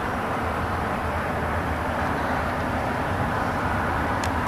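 Steady noise of a small jon boat under way: wind on the microphone over a low, even hum. It cuts off abruptly at the very end.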